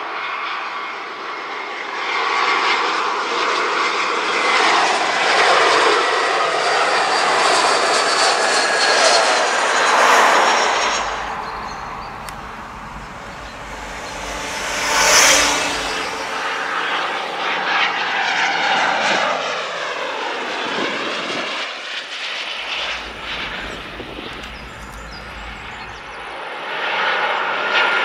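Jet aircraft on landing approach passing low overhead one after another: an Airbus A319, a Bombardier Learjet, then a Boeing 737. The engine noise swells to loud peaks about ten and fifteen seconds in, and a falling whine is heard as one goes by.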